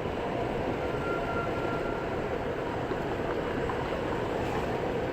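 Steady vehicle rumble heard from inside a car.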